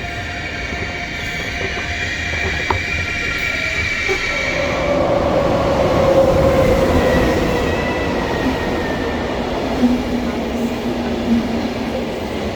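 Electric train running alongside the platform, with steady high whines and then a whine falling in pitch as it slows. It is loudest about six seconds in.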